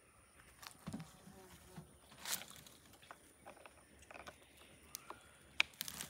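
Faint scattered clicks and knocks of plastic fuel containers and chainsaw parts being handled during refuelling, with a short scraping noise about two seconds in and a sharp click near the end.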